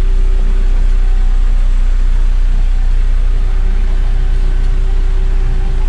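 A car running, heard from inside its closed cabin: a steady low rumble with a faint steady hum at one pitch above it.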